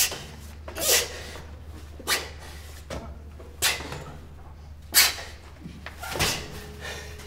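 A run of six short, sharp fight sounds, each a quick knock or swish, about one every second and a half, over a low steady hum.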